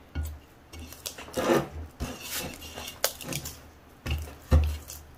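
Soft bread dough being kneaded by hand in a ceramic bowl while butter is worked in: irregular sticky squelches and slaps of dough against the bowl, with dull thumps, the loudest about four and a half seconds in.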